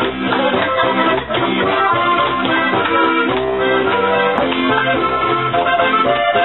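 Live Volkstümliche (Alpine folk-pop) dance music from a small band: a lively tune with sustained melody notes over a steady, regular bass beat.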